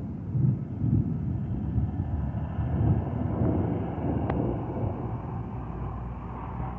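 Low rolling thunder rumble from a thunderstorm, swelling a few times in the first three seconds and then slowly easing off, with a faint click about four seconds in.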